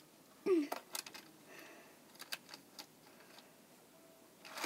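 Die-cast toy cars and a plastic toy ramp clicking and clacking as the cars are handled and set in place: one sharp clack about half a second in, then scattered lighter clicks.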